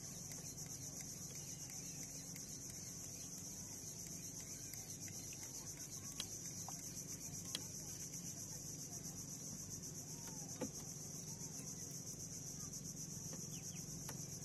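A steady, high-pitched insect chorus, with chickens clucking faintly in the background and a few sharp clicks.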